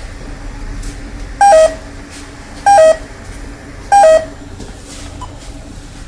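Bosch alarm-system touchscreen keypad sounding three two-note beeps about 1.3 seconds apart, each a short higher tone stepping down to a lower one.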